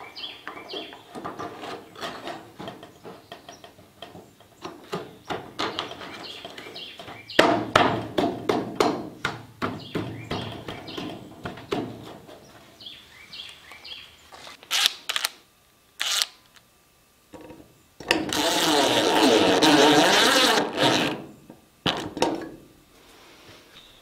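Knocking and clicking of hand work on gutter sections and fittings, then a power tool running for about three seconds near the end.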